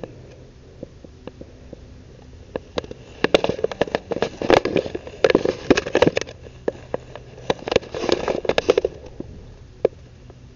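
A cat chewing a piece of meat, crunching in two bouts of dense, crackly clicks, the first longer and louder, with scattered single clicks around them.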